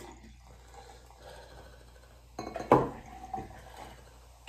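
Soda poured from glass bottles into pint glasses: a soft trickle of liquid, with a sharp clink of glass a little over halfway through.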